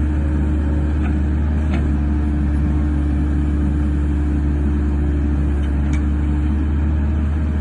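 Caterpillar 308C mini excavator's diesel engine running steadily with a low rumble and a constant hum while the boom and bucket are worked.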